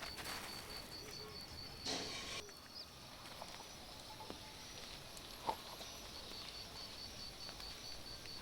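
An insect, cricket-like, chirping in a steady run of high, even pulses, about five a second; it stops about two seconds in and starts again past the middle. A short rustle comes about two seconds in and a single sharp click later.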